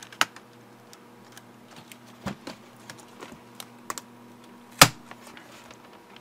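HP EliteBook 8770W laptop keyboard clicking and rattling as hands press and push it to free it from the top case, where adhesive strips still hold it down. Irregular clicks with a few louder knocks, the loudest a little before the end.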